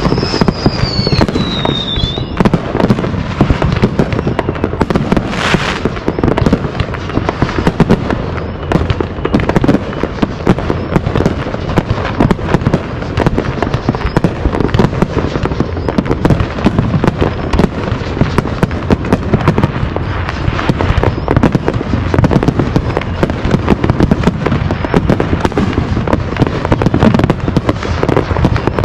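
Many fireworks going off at once: a continuous barrage of overlapping bangs, pops and crackling. A falling whistle sounds in the first two seconds, and a brief hiss comes about five and a half seconds in.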